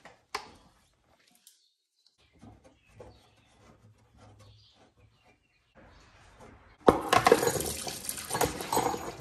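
Warm engine oil gushing from the open drain plug hole of a C8 Corvette into a drain pan, starting suddenly about seven seconds in and coming out fast. A few faint clicks come before it as the plug is unscrewed.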